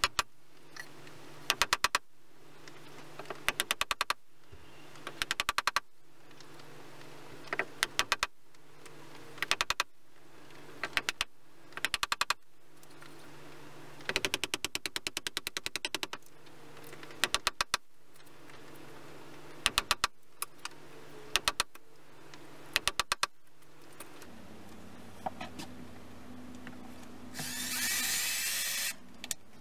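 Short bursts of rapid clicking from a woodworking hand tool, repeating every second or two over a low steady hum. Near the end a louder, steady hiss-like noise takes over for a second or two.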